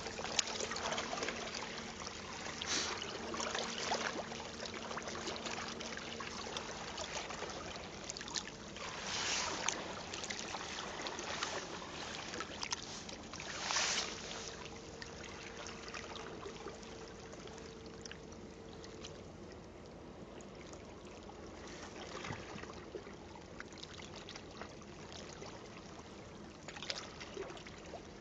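Shallow sea water lapping and sloshing around a hand holding a sea bass by the jaw while it is revived before release, with a few louder splashes in the first half that ease off to gentle lapping later on.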